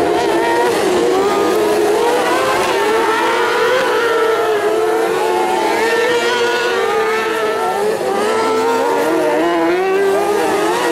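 Several autocross buggies' engines running hard at high revs, their overlapping pitches rising and falling as the pack accelerates through a dirt-track turn.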